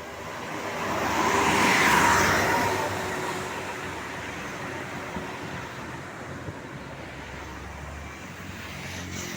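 A road vehicle passes close by. Its tyre and engine noise swells to a peak about two seconds in, then fades into steady traffic noise.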